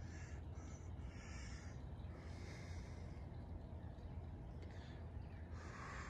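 Faint breathing close to the microphone, a few soft breaths one to two seconds apart, over a low steady background hum.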